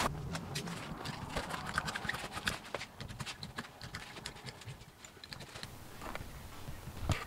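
Irregular light clicks, taps and faint scraping from hand work on a boat's coated fabric skin, thinning out about halfway through.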